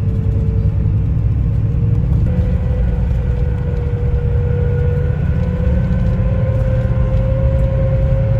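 Airliner engines heard from inside the cabin: a loud steady rumble with one engine tone slowly rising in pitch, as during takeoff and climb.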